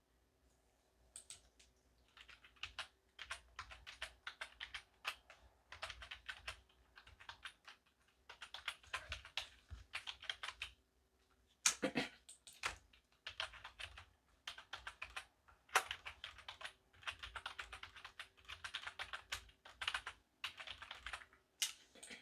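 Computer keyboard typing in quick runs of keystrokes with short pauses between them, with a couple of louder single key strikes around the middle.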